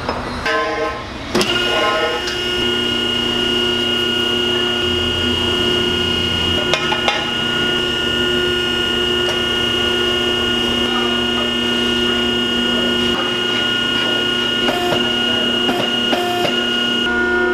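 Huth hydraulic exhaust-pipe bender running while it bends a steel exhaust pipe: a steady hum with a high whine, a couple of metal clicks about seven seconds in, and a change in tone just before the end.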